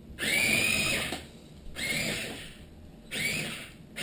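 Electric track-drive motors of a 27 MHz Hobby Engine RC excavator whining in three short bursts of about a second each. Each burst jumps straight to a steady high pitch: the tracks have no speed control and run at full speed or not at all.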